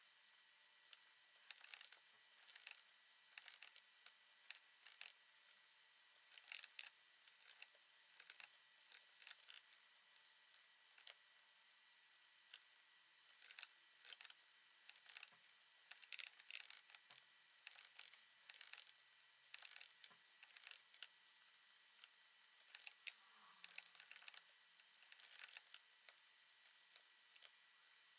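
Faint computer mouse and keyboard clicks, coming in short irregular clusters every second or so.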